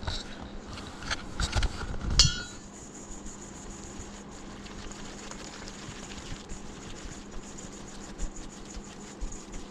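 A utensil stirring corn muffin batter in a bowl and clinking against its side, with one ringing clink about two seconds in. After that, quieter stirring with light scattered ticks.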